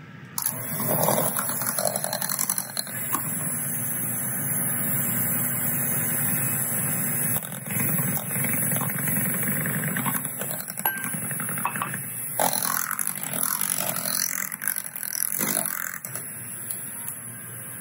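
Electric hand mixer running steadily, its beaters whirring through thick cake-batter filling. It starts about half a second in.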